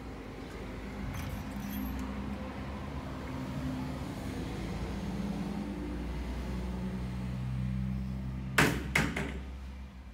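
A low engine drone of a vehicle, its pitch shifting slowly as it swells and then fades. Two sharp knocks come close together near the end.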